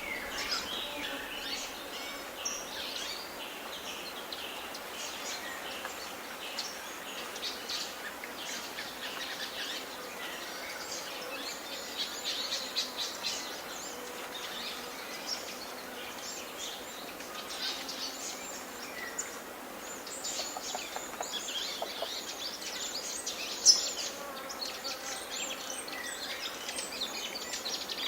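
Forest birdsong: many birds chirping and twittering over a steady background hiss. One sharp, much louder short note stands out about two-thirds of the way in.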